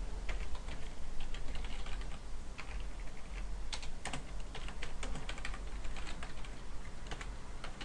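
Typing on a computer keyboard: quick, irregular key clicks as a line of code is entered, over a steady low hum.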